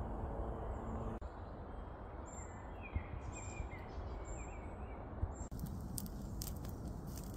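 A steady low hum for about the first second, then woodland birdsong with short chirps over a low rumble. Near the end it switches to a wood campfire crackling, with sharp pops.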